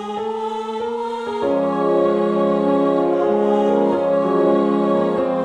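Slow, tender ensemble music of sustained chords for piano, French horn and viola under a soprano melody line; the harmony changes about a second and a half in.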